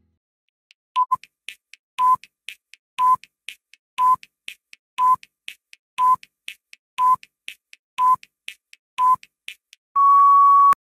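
Countdown timer sound effect: a short beep once a second, each followed by a fainter tick, ending near the end in one longer steady beep as the count reaches zero.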